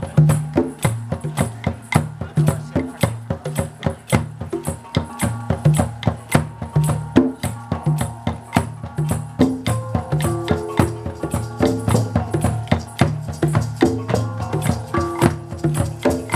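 Live hand-percussion jam: shakers or tambourine and a low-pitched drum keep a steady beat of quick strikes. About ten seconds in, a melodic instrument joins with held notes over the rhythm.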